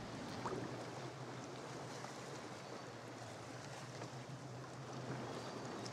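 Gentle water lapping and splashing around a sea kayak on calm sea water, a soft, even wash with a few faint drips.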